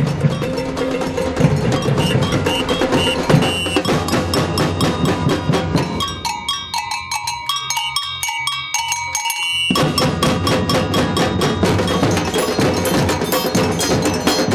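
Street percussion band playing a fast, steady rhythm on drums, with ringing bell-like metal notes on top. For a few seconds in the middle the drums drop out and only the high metallic notes carry the rhythm.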